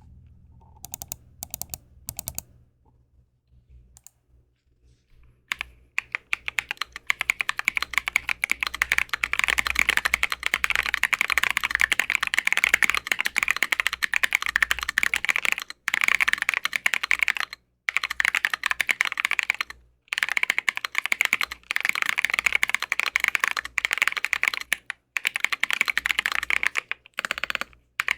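Typing on an Arisu ergonomic mechanical keyboard with lubed and filmed Drop Holy Panda tactile switches, Drop MT3 keycaps and an acrylic plate, with PE foam fitted under the switches. A few single keystrokes, then fast continuous typing from about five seconds in, broken by several short pauses.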